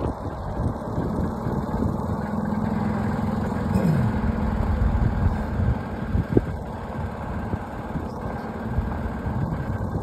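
A motor vehicle running, with a steady low hum that slides down in pitch about four seconds in.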